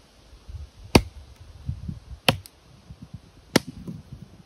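Terävä Skrama 240 chopping knife striking a dry, gnarled branch on a stump: three sharp chops a little over a second apart, with light rustling of the wood between strokes.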